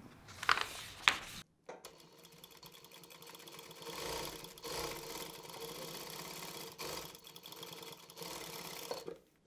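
Jack 9100BA industrial computerized sewing machine stitching a straight line through folded cotton, its needle ticking rapidly and steadily; it starts about two seconds in and stops shortly before the end. A few light clicks come just before it starts.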